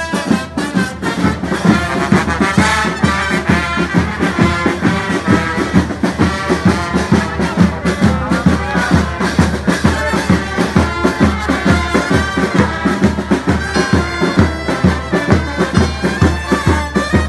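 Brass band playing a lively march with a steady beat underneath, to accompany a cereo carried in procession.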